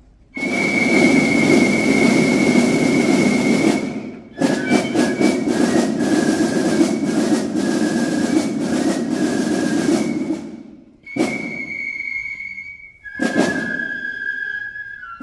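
Loud outdoor band music with heavy drumming under a high held melody note that changes pitch partway through. The sound breaks off abruptly for a moment about four seconds in and twice more near the end.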